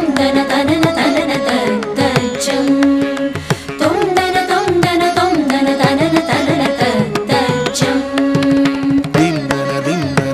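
Carnatic music accompanying a Bharatanatyam dance: an ornamented, gliding melody over quick, steady hand-drum strokes.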